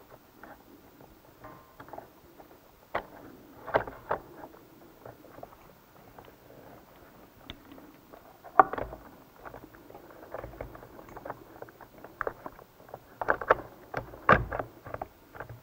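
Drive belt and metal-bracketed drive pulley assembly being fitted by hand onto a riding-mower CVT transmission: irregular clicks, taps and knocks of metal and plastic parts, the loudest knocks about halfway through and again near the end.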